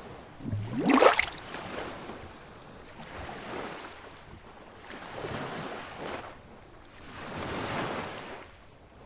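Ocean waves washing in slow swells, rising and falling about every two seconds. About a second in comes a loud rising whoosh, sweeping from low to very high pitch.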